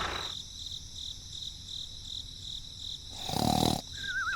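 Faint cricket-like chirping, a high pulsing tone, with a short buzzy burst about three seconds in and a wobbling whistle that falls in pitch near the end.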